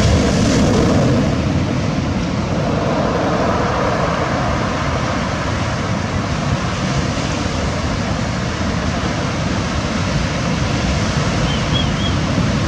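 Sea waves breaking and washing up onto a pebble shore: a steady rushing noise, a little louder in the first second or so.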